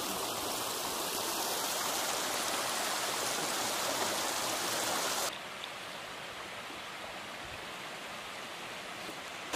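Shallow mountain creek running over stones, a steady rushing with no distinct events. About five seconds in it drops suddenly to a quieter, duller rush.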